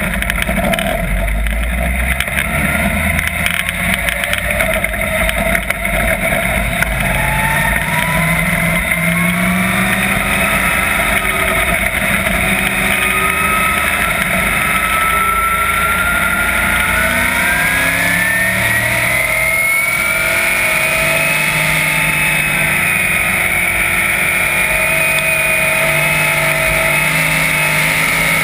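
410 sprint car's methanol-burning V8 heard from on board the car, running at speed on track. Its pitch climbs steadily for about twelve seconds as the car picks up speed, then holds high and fairly steady.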